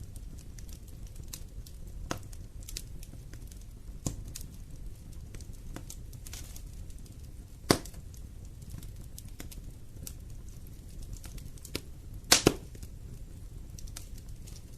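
Wood fire burning in a fireplace, crackling with scattered sharp pops over a low steady rumble. One loud pop comes about halfway through, and a quick run of loud pops near the end.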